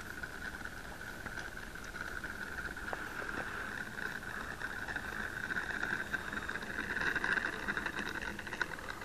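Battery-powered RC Cessna 182 (500 class) electric motor and propeller whining steadily as the model taxis on the runway. The whine gets louder toward the end as the plane comes close.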